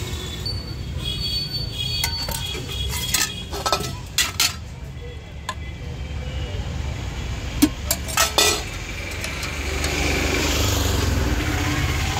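Steel ladles and spoons clinking against steel plates and pots while chole and chutneys are served: a few sharp ringing clinks about three to four seconds in, and another cluster around eight seconds. A steady low rumble runs underneath.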